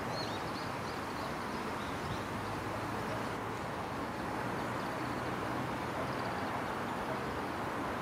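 Steady outdoor background noise with a low hum, like distant traffic. Faint high bird chirps come in the first second or so and again weakly mid-way.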